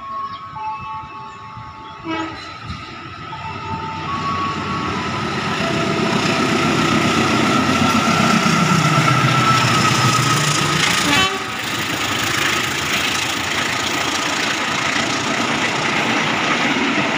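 A diesel-hauled long-distance train passes through the station, its horn sounding as it comes in. The locomotive's engine note builds to a peak and falls in pitch as it goes by, about eight to ten seconds in. After that the carriages roll past with a steady rail noise.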